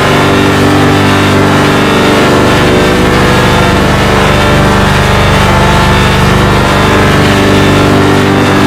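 Loud, heavily processed droning sound: many steady stacked tones held unbroken, with a dense buzzy texture like a distorted, effect-laden jingle.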